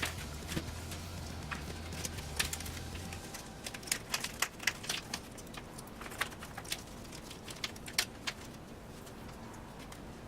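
Scattered light clicks and taps of small hard parts being handled, bunched about four seconds in and again near eight seconds, over a low hum that stops about three seconds in.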